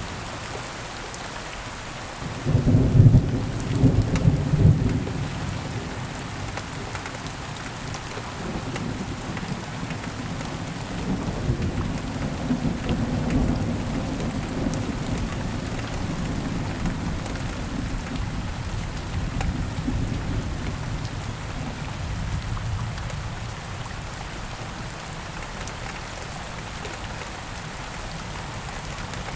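Thunderstorm: steady rain falling, with a sudden loud thunderclap about two and a half seconds in that rumbles for a couple of seconds, then a long, lower rolling rumble of thunder through the middle that fades back to rain alone near the end.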